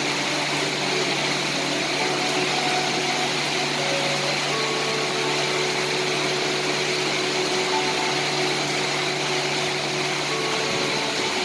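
Steady rain falling as an even hiss, with soft, slowly changing held music notes underneath.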